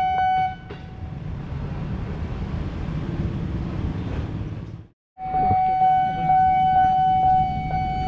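Level-crossing warning alarm: a steady electronic tone ticking about two or three times a second, which stops about half a second in. A KRL commuter electric train rumbles past for a few seconds. After a brief break the crossing alarm sounds again with the same ticking tone.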